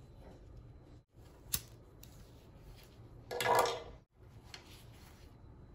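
Handling noise from work on scooter wiring: a sharp click, then a short clatter about halfway through, and a smaller click after it, over a low steady hum.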